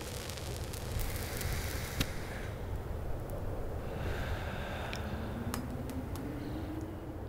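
A cigarette being lit with a lighter, with sharp clicks and crackling hiss, then a drag and a breathy exhale of smoke. A low steady rumble sits underneath, and a hum rises slowly near the end.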